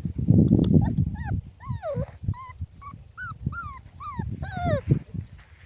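Puppy whimpering: a run of about ten short, high whines, most of them falling in pitch, over low thumping and rustling.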